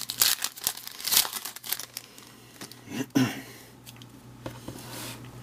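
Foil wrapper of a baseball card pack crinkling and tearing as it is ripped open, busiest in the first two seconds, then quieter rustles and clicks of the cards being handled.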